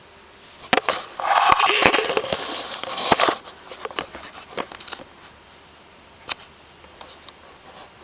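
Budgerigar chattering close to the microphone: a dense, scratchy run of chatter mixed with sharp clicks and knocks, from about a second in for two seconds. A few scattered clicks follow.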